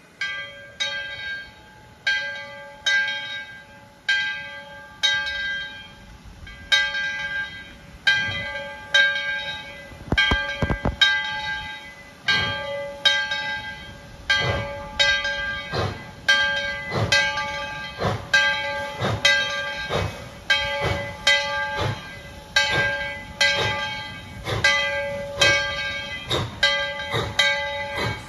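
Steam locomotive No. 12's bell ringing steadily, about one stroke a second, as the train departs. From about eight seconds in, the deep exhaust chuffs of the engine getting under way sound beneath the bell.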